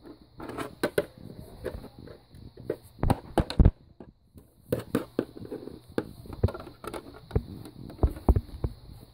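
Irregular knocks, bumps and rubbing of a phone being handled and carried close to its microphone, with a faint steady high whine underneath.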